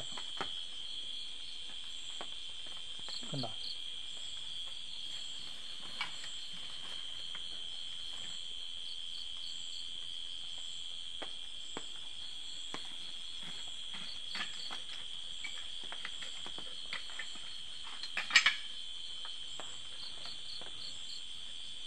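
Night insects chirring: a steady, high-pitched trill. A few faint clicks and knocks are scattered through it, and a brief, louder clatter comes about eighteen seconds in.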